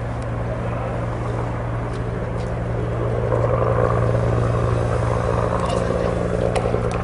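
Steady low motor drone, with a rushing noise over it that grows louder about three seconds in.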